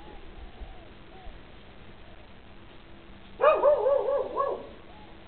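Dogs barking: faint barks at first, then a loud quick run of about half a dozen barks about three and a half seconds in, lasting about a second.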